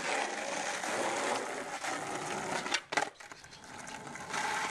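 Skateboard wheels rolling on asphalt, a continuous rough rumble, with two sharp clacks of the board close together about three seconds in: the pop and landing of a shove-it.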